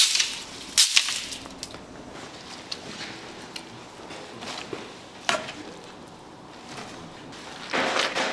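A few sharp knocks near the start and one about five seconds in, then a longer rustling scrape near the end, over low background noise.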